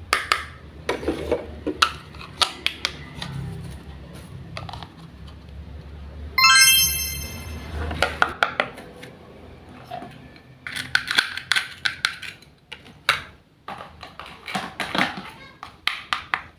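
Light clicks, taps and knocks of small objects being handled on a hard surface, with a brief steady electronic tone about six and a half seconds in.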